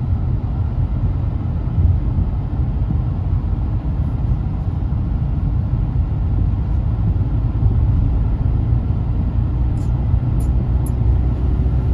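Steady low rumble of a car's tyres and engine at cruising speed, heard inside the moving car's cabin. Three short ticks come near the end.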